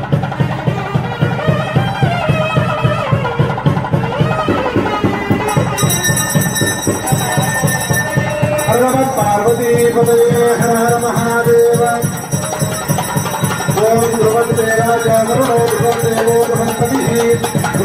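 Traditional Indian festive music with a fast, steady drum beat and a melody line that holds long notes.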